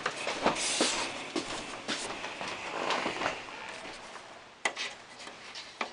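Handling noise: rustling with a scatter of light clicks and knocks, and a brief hiss a little under a second in.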